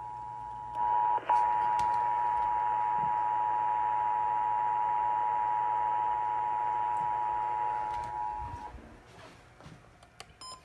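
Emergency Alert System two-tone attention signal: two steady tones (853 and 960 Hz) sounding together over a radio, with hiss beneath. It gets louder about a second in and stops near the end, followed by a few faint clicks.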